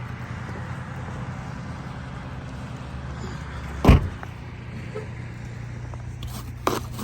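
A car engine idling steadily, with one loud thump about four seconds in and a smaller knock near the end.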